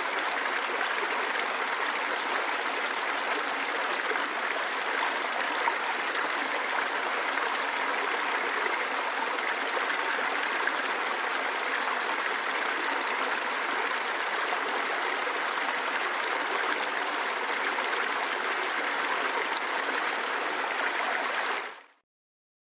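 Running water, a steady rushing flow like a stream or waterfall, that cuts off suddenly near the end.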